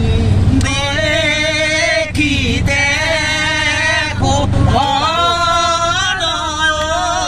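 Young men singing loudly together inside a moving vehicle, their voices wavering through a drawn-out melody. Under the voices runs a low engine rumble that drops away about five seconds in.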